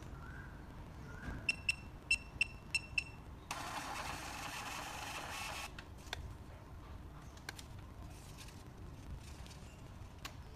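Payment terminal beeping six times in quick succession, then its built-in receipt printer running for about two seconds as it prints the transaction receipt, followed by a few light clicks.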